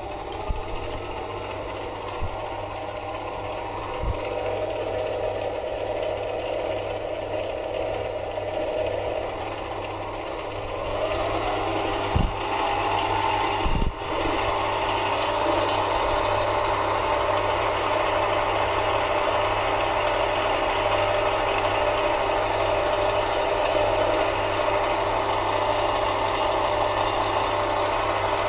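Mini lathe running with its chuck spinning: a steady motor whine and hum. About eleven seconds in, the whine rises in pitch, a couple of knocks follow, and from then on it runs a little louder and steady.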